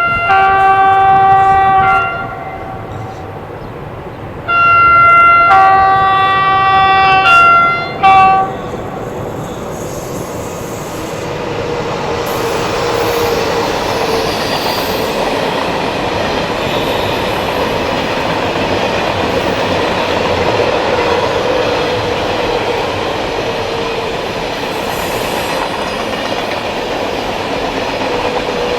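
A passenger train's two-tone horn sounds twice: a first blast that steps from the low note to the high, then about four seconds in a longer sequence alternating low, high, low, high. Then the train runs past with a steady, even running noise.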